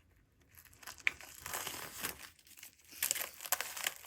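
Plastic wrapping on a music album crinkling and crackling as it is handled. It starts about half a second in, with sharp clicks and a denser stretch near the end.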